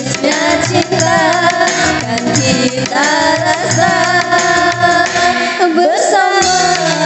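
A young woman singing a song over backing music with a steady beat; her voice wavers and slides around the melody.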